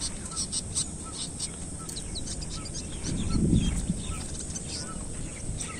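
Birds chirping in many short, repeated calls, with a brief low rumble a little past halfway.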